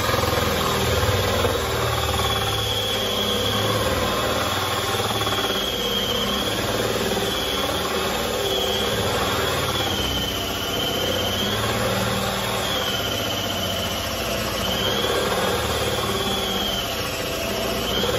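Cordless drill running steadily with a 35 mm hinge-boring bit, cutting a concealed-hinge cup hole into a wooden wardrobe door. The cutting gives a high whine that dips in pitch every couple of seconds.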